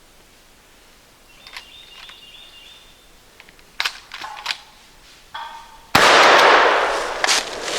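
A shotgun's trigger clicks on a dud shell, followed by the clack of the action being racked to chamber a new one. About six seconds in, the shotgun fires once, loudly, and the report echoes away.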